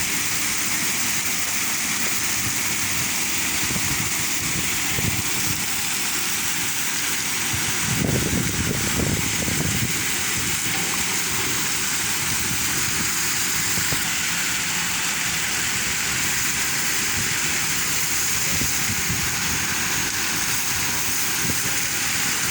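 Water spraying steadily from a leaking pipe, a continuous hiss, with a few low bumps about eight to ten seconds in.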